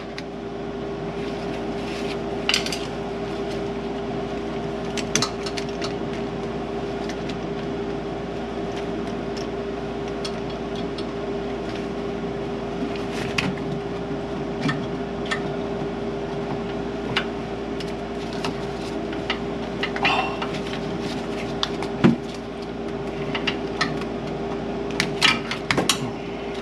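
Scattered metallic clinks and taps of hand tools working under a car's hood, as a part is pried loose, over a steady background hum. The sharpest knock comes about 22 seconds in.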